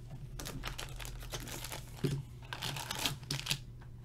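Crinkling and tearing of packaging, with a few small clicks, as a hockey card box is unwrapped and its lid opened.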